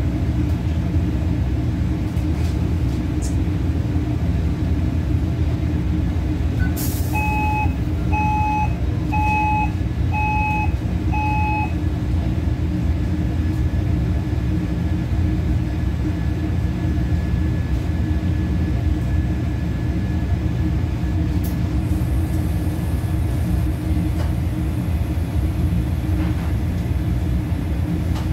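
Steady low hum of commercial kitchen equipment, with five short electronic beeps about a second apart starting about seven seconds in.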